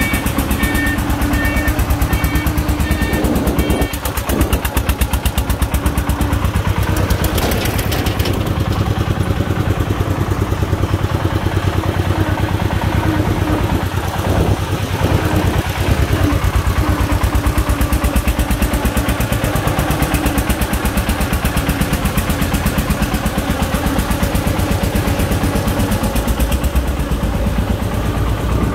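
Single-cylinder diesel engine of a sand-laden công nông farm truck chugging with a loud, fast, even beat as it drives along.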